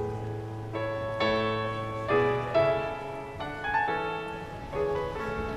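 Background piano music: slow chords, a new note or chord struck every half second to a second.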